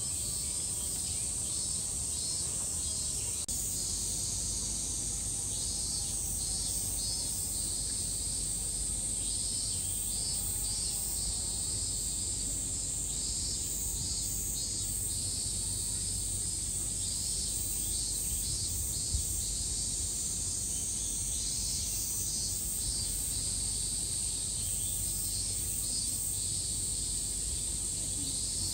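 Cicadas buzzing steadily in a high, continuous chorus, with a second, pulsing call that comes and goes over it.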